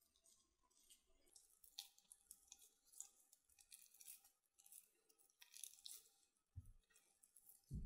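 Faint sticky squishing and crackling of thick corn-dog batter being pressed and wrapped by hand around a skewered cheese corn dog, with two soft low thumps near the end.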